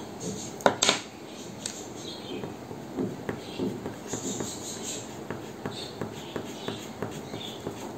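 Coloured pencil scratching on paper in quick short shading strokes, about three a second, with one louder tap just under a second in.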